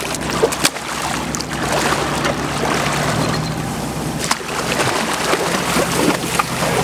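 Steady low hum of an idling boat engine, with water sloshing and splashing as a California sea lion swims and surfaces close by.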